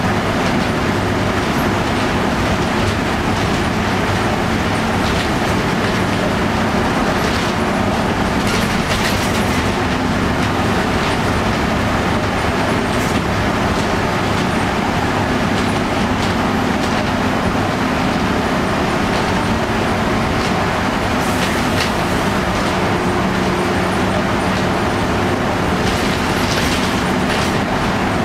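Cabin sound of a 1990 Flxible Metro B bus under way: its Detroit Diesel 6V92TAC two-stroke V6 diesel drones at a steady pitch over loud road noise. A few short clicks and rattles come through now and then.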